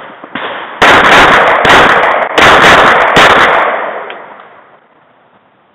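Four handgun shots fired about 0.8 s apart, beginning just under a second in, each followed by an echoing tail; after the last the echo dies away over about a second and a half.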